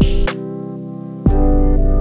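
Background music with a steady beat and sustained keyboard-like chords; the deep bass drops out about a third of a second in and comes back a little past halfway.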